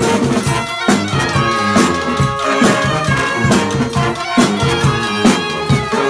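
Live brass street band playing: trumpets, saxophones and trombone over a sousaphone, with a marching drum keeping a steady beat of about one stroke a second.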